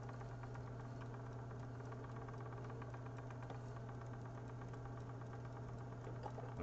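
Magpie Daedalus spinning wheel running at speed, its flyer and bobbin whirling: a steady low hum with faint, fast ticking.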